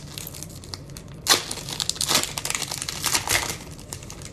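Foil wrapper of a Bowman Platinum baseball card pack being torn open and crinkled by hand: a sharp rip about a second in, then a couple of seconds of crackling as the wrapper is pulled apart.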